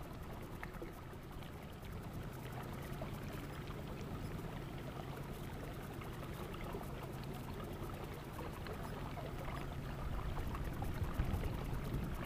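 Water trickling and lapping along the hull of a Phoenix bass boat moving slowly across calm water, over a low steady motor hum. The water and motor noise grow louder near the end.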